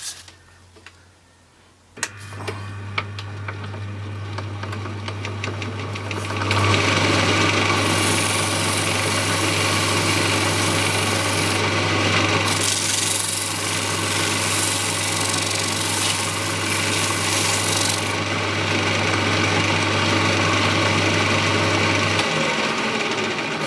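Electric wood lathe switched on and running with a steady hum. From about six seconds in, a folded paper towel with oil is pressed against the spinning bird-cherry bowl, making a loud, even rubbing hiss as it wipes off leftover mastic. The lathe switches off shortly before the end.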